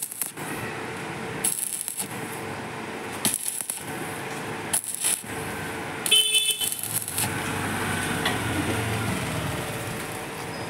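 Electric arc welding on the steel mudguard bracket of a scooter: the welding arc crackles and hisses in several bursts of a second or so, with brief breaks as the rod is struck again. It stops about seven seconds in, leaving a lower steady noise.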